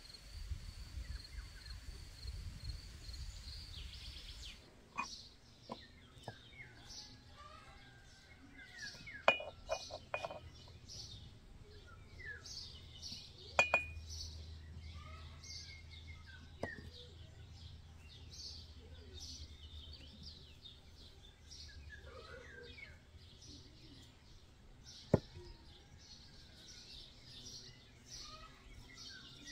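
Small birds chirping over a steady, pulsing high insect call, with several sharp clinks and knocks scattered through, the loudest of them short and ringing.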